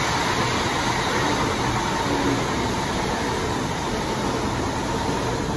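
LNER intercity passenger train passing through the station: a steady rumble of wheels and running gear on the rails.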